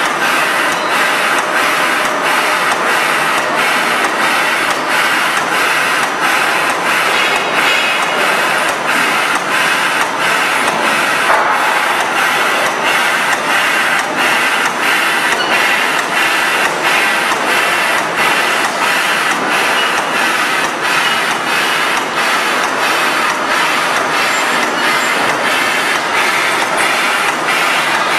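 Paper edge protector production line running: a steady mechanical clatter of rollers and drives with a regular clicking rhythm.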